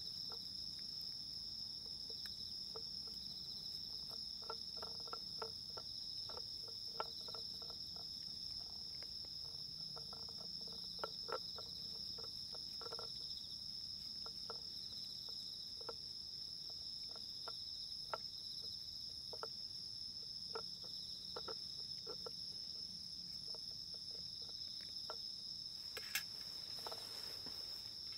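Insects singing in a steady, high, continuous trill, over irregular small clicks and smacks of a cat eating wet food from a tin can, its face pushed into the can. The clicks come in a dense run for several seconds, then grow sparse.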